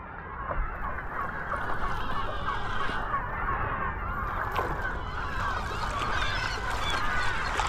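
A large flock of seagulls calling and screaming together, many overlapping harsh calls at once, swelling in the first second and then holding steady.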